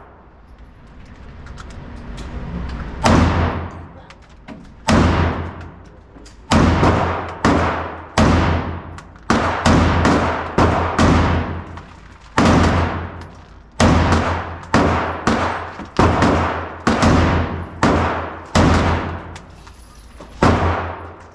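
AR-15 rifle (Smith & Wesson M&P Sport 3) firing semi-automatic, shot after shot at an irregular pace of about one a second or a little faster, each report ringing out briefly. The string starts about three seconds in and runs on with only short pauses.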